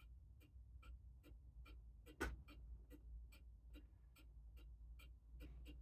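A clock ticking faintly and steadily, about two and a half ticks a second. One louder knock comes about two seconds in.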